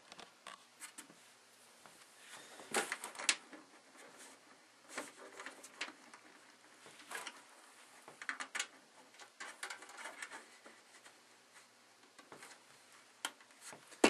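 Faint, scattered clicks and scrapes of screws being fastened into a computer case's side panel, with hands handling the case.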